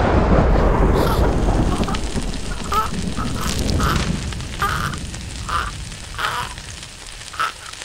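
Cartoon sound effects: the low rumble of a blast dies away, then a string of about seven short, nasal, quack-like squeaks follows, spaced roughly half a second apart.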